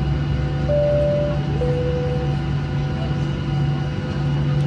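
Boeing 737 cabin chime, two tones falling high to low about a second in, over the steady hum of the cabin and engines.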